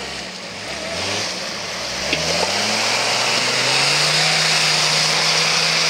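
Off-road 4x4's engine revving hard, its pitch climbing over about two seconds and then held at high revs, with a loud hiss of tyres spinning and flinging mud.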